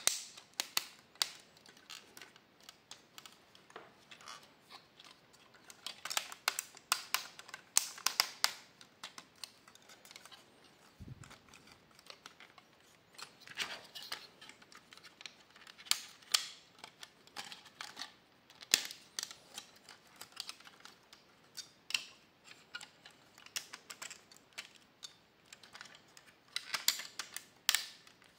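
Hard plastic parts of a transforming toy robot clicking and snapping into place as its limbs and panels are folded by hand, with irregular clicks coming in quick bunches.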